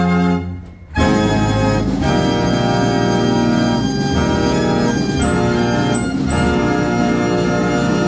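1949 Carl Frei fair organ playing an opera tune on its pipes: a held chord breaks off just under a second in, and after a short pause a new phrase begins, sustained melody notes over a changing bass.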